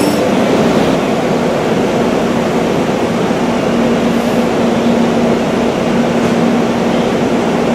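SEPTA Regional Rail train running past the station platform: a loud, steady rush of wheels and cars on the rails, with a faint steady hum underneath.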